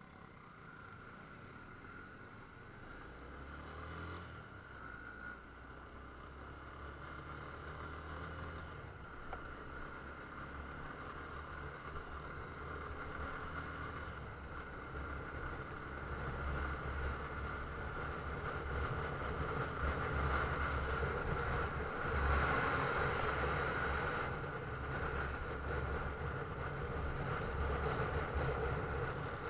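Motor vehicle driving: a low engine rumble that grows louder through the first half and then holds steady, with a steady higher tone above it.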